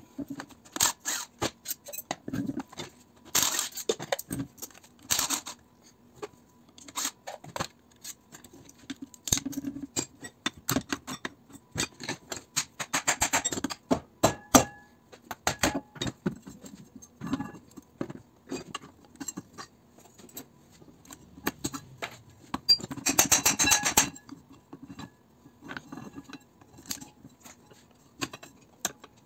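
Metal clinks, knocks and scrapes of an electric motor's parts on a steel workbench plate as the motor is taken apart by hand with a wrench. Many short sharp clicks, with a few longer scraping stretches, the loudest and longest late on.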